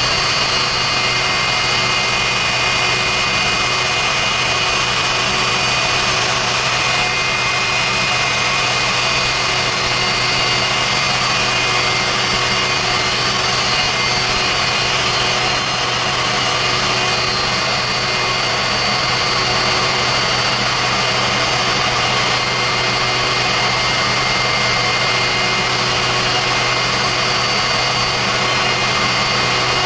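Westinghouse J34 turbojet running steadily at part throttle, pushing a pontoon boat: a continuous even roar with a steady high compressor whine over it.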